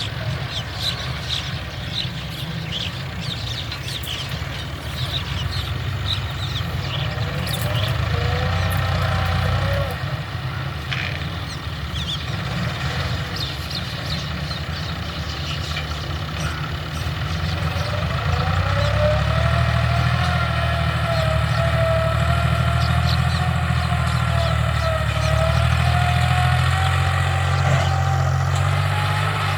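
Tractor engine running under load while ploughing, its pitch rising about eight seconds in and again around eighteen seconds, after which it runs higher and louder.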